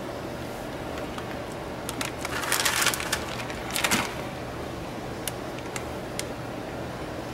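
Crinkling and rustling of a plastic bag of shredded cheese being handled, loudest about two to three seconds in and again near four seconds, with a few light clicks over a steady low hum.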